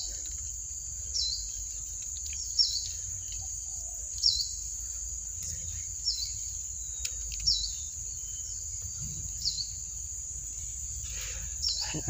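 Insects droning steadily at a high pitch, typical of crickets in dry grass, with a short high chirp repeating about every second and a half.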